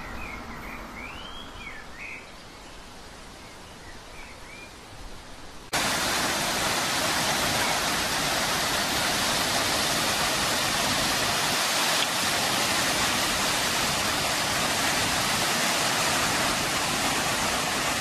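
Faint outdoor background with a few short bird chirps, then, about six seconds in, an abrupt cut to the loud, steady rush of a waterfall: white water cascading over mossy rocks.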